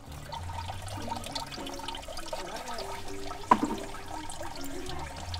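Wet trickling and sloshing of cashew-apple juice from a mound of trampled fruit being bound with rope for pressing, with one sharp knock about three and a half seconds in.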